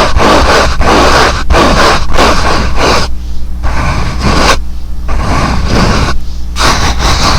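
Fast, close-microphone ASMR hand and mouth sounds: dense rubbing and scraping noise that breaks into quick bursts with short pauses about halfway through, over a steady low hum.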